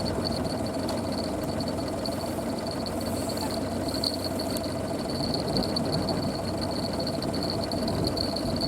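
Fishing reel being wound in to bring up a bite, a thin high whine, over a steady engine-like rumble.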